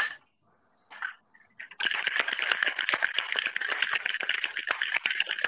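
Ice rattling hard in a cocktail shaker being shaken, a fast steady clatter that starts about two seconds in after a single clink, chilling the cocktail.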